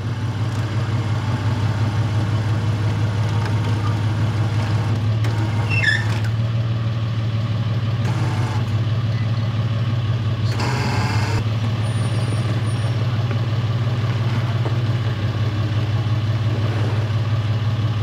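Tow truck's engine running steadily with a low, even hum, and a short burst of noise about ten and a half seconds in.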